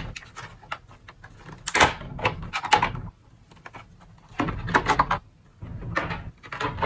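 Plastic and cardboard product packaging rustling and crackling in three bursts of handling as a soldering gun and its cord are pulled out of it.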